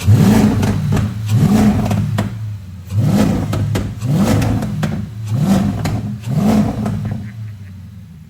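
Audi S5 4.2-litre V8 blipped repeatedly, about six quick revs roughly a second apart, each rising in pitch before dropping back. Near the end it settles to a quieter idle.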